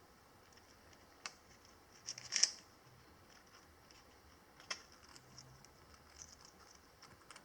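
Parrot biting and crunching a biscuit in its beak: a few sharp cracks, the loudest cluster about two seconds in and another near five seconds.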